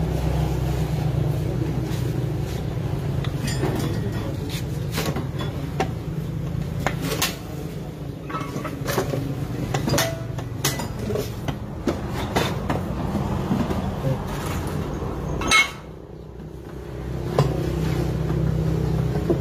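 Short metallic taps, knocks and clinks of a hammer and hand tools on a Honda Click 125 scooter's rear hub and brake parts, over a steady low hum. The loudest knock comes about three-quarters of the way through, and the hum drops away briefly after it.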